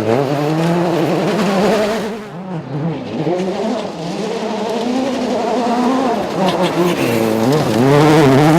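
Rally car engines revving hard on a gravel special stage, the engine note climbing and dropping again and again through gear changes. The loudest pass comes near the end.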